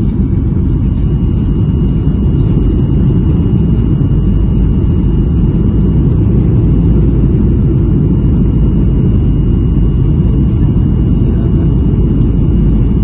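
Jet airliner cabin noise on landing approach: a loud, steady low rumble of engines and rushing air, heard from inside the cabin. A faint steady high tone comes in about a second in.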